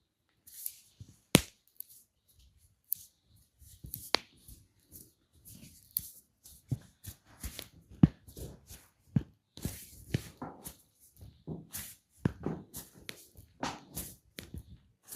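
Hands working during a massage: soft rubbing broken by irregular sharp slaps and snaps on skin, with a few louder cracks about a second and a half, four and eight seconds in.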